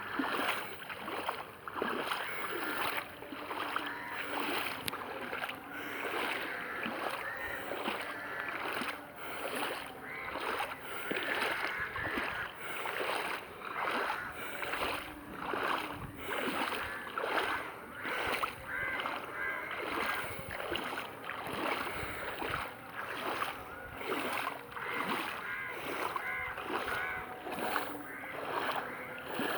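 Footsteps wading through floodwater, the water sloshing around the legs in a steady walking rhythm.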